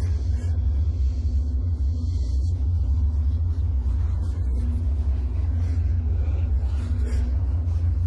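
Deep, steady low rumble drone with a faint held tone above it, the dark ambient soundtrack of a horror logo reel.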